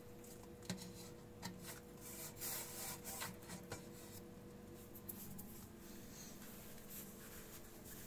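Faint rubbing and scraping of a fingertip on the rubber door seal of a Miele washing machine, with a few soft clicks in the first half, over a faint steady hum.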